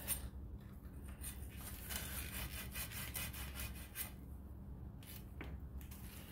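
Faint, irregular rubbing and scraping on a length of copper pipe, worked by a gloved hand, with a short pause about four seconds in. A steady low hum runs underneath.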